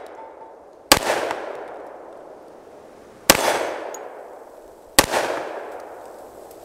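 Three shots from a Hi-Point JXP 10mm pistol firing 200-grain Federal Fusion bonded soft points: sharp reports about a second in, just past three seconds and at five seconds, each trailing off in a long echo.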